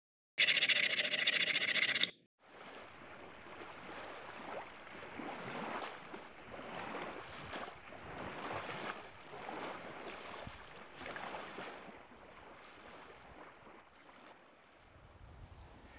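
A loud intro sound for about two seconds, then small waves lapping and washing at a lake's edge, swelling and ebbing every second or so and fading near the end.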